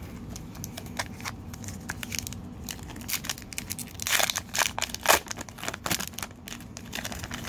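Wrapper of a 2018 Bowman baseball card pack being torn open at its crimped seam and crinkled in the hands: a run of sharp crackles, loudest about four to five seconds in.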